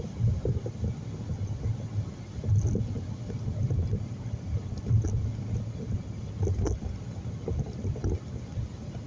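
Car driving, heard from inside the cabin: a continuous low road and engine rumble that swells and dips.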